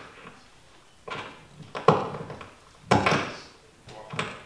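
Papers and notes being handled at a wooden lectern, picked up by the speaker's microphone: four separate sharp rustling knocks, about a second apart.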